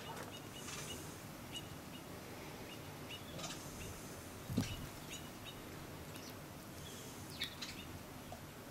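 Small birds chirping now and then over a steady background hiss, with one dull thump about halfway through.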